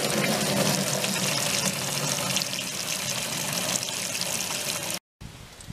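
Water running from an outdoor tap through a hose connector into the neck of a plastic water container as it fills: a steady rush and gurgle that cuts off suddenly near the end.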